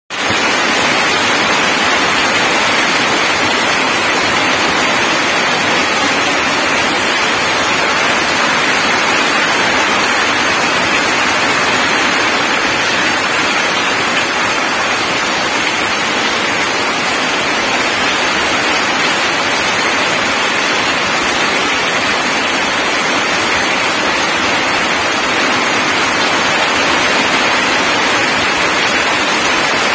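Heavy rain falling steadily onto wet ground and puddles, a dense, even splashing hiss.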